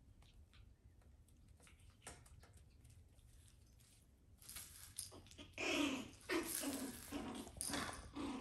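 Pomeranian puppies play-fighting. At first there is only light scrabbling of claws on a tile floor, then about halfway in a run of loud puppy growls and yaps as they wrestle.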